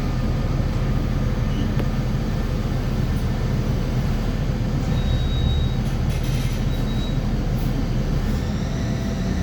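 Mercedes-Benz OF-1724L BlueTec5 city bus under way: steady diesel drivetrain noise with the differential growling. A brief high squeak comes about five seconds in and again about two seconds later.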